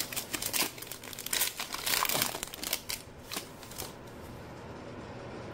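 Foil trading-card pack wrapper crinkling as it is handled and torn open, the crinkling stopping about four seconds in and leaving a faint steady hiss.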